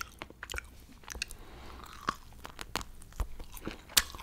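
A person chewing fried seasoned dried squid: irregular crisp crunches and wet mouth clicks, with a sharper crunch near the end.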